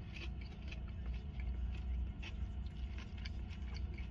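A person eating fried shrimp, with small irregular crackles and scrapes of chewing and of the takeout container being handled, over a steady low hum.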